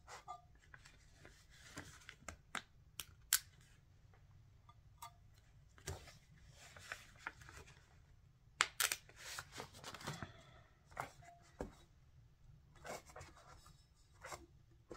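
Scattered small clicks and crinkling of adhesive vinyl and its backing sheet being handled with a pointed metal weeding tool as vinyl spots are picked off and pressed onto a tumbler. The rustling is busiest in the middle.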